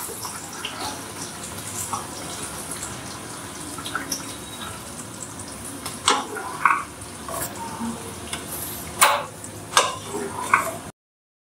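Chilli soya-chunk sauce simmering and bubbling in a nonstick frying pan, a steady sizzle and crackle. In the second half a spatula stirs through it, scraping and knocking against the pan about five times.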